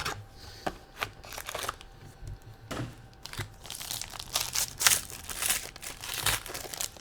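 Trading-card pack wrappers being torn open and crinkled while cards are handled, in irregular rustles that grow denser about halfway through.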